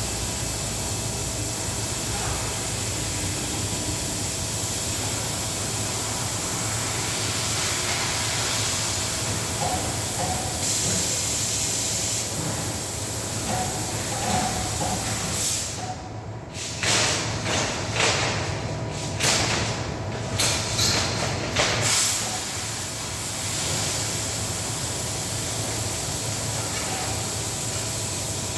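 CNC cutting machine running with a steady hiss over a low hum; in the middle the hiss cuts out and comes back several times in short bursts.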